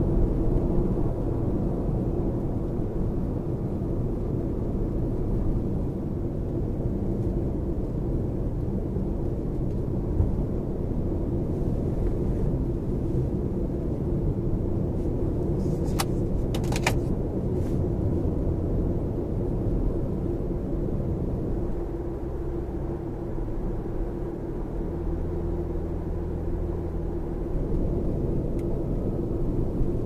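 Steady low road and tyre rumble heard inside the cabin of a Lexus RX 450h at highway speed. A few sharp clicks come a little past halfway through.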